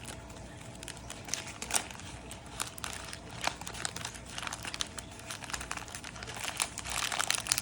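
Plastic packaging crinkling and crackling in the hands as it is peeled and pulled at, with irregular sharp crackles that grow busier near the end.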